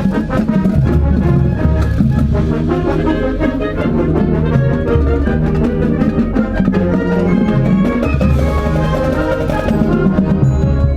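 A Japanese high-school wind band playing live, brass carrying the tune over drums and percussion.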